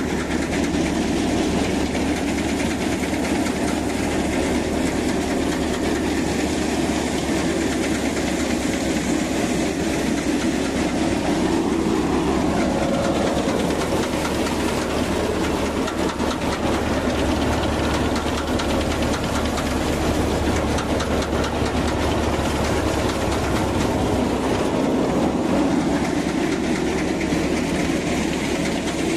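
Tractor-driven paddy thresher running steadily under load as bundles of rice are fed into its drum. A Deutz-Fahr Agrolux 50 tractor's engine drives it.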